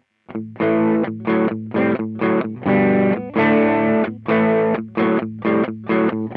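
Electric guitar played through an Ibanez Tube Screamer overdrive pedal in its TS9 voicing, playing a riff of short, choked overdriven chords, about a dozen strokes with a few held a little longer, starting after a brief silence.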